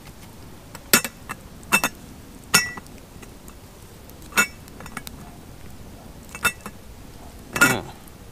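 Metal camping pot clinking against its wire handle and lid as it is hung on a stick pot hanger over a campfire and taken off again: six sharp, ringing clinks spread over several seconds, the last one heavier.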